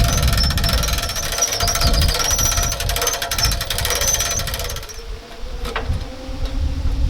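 A machine's rapid hammering rattle with a wavering high whine, cutting off about five seconds in. A lower, quieter hum with a few sharp clicks follows.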